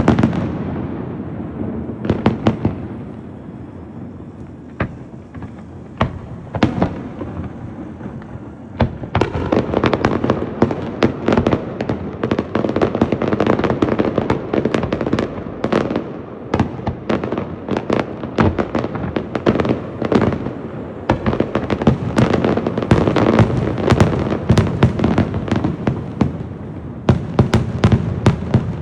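Fireworks display: shells bursting with loud bangs and rumbling echoes, sparse for the first several seconds, then a dense, rapid barrage of bangs and crackles from about nine seconds in.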